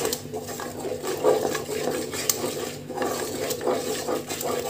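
Wooden spatula stirring and scraping thick tomato-onion masala around an aluminium pressure cooker, in quick irregular strokes with clicks against the pot.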